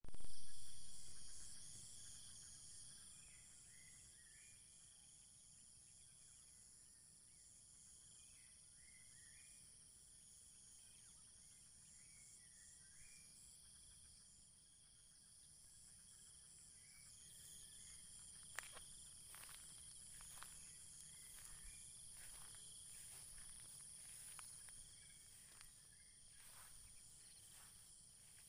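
Insect chorus in grassland: several steady high-pitched drones from crickets and other insects, with a few short chirps in pairs during the first half. It opens with a brief loud burst that dies away over about two seconds, and sharp clicks come irregularly in the second half.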